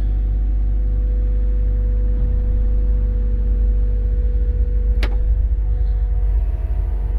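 Cat 325 excavator's diesel engine running steadily, with a constant low rumble and a steady hum, while the hydraulic controls are worked. A single sharp click about five seconds in.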